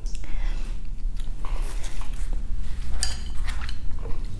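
Wooden chopsticks stirring and lifting ramen noodles and beef in a glass bowl of birria broth, with irregular clicks and wet handling noises and a busier cluster about three seconds in.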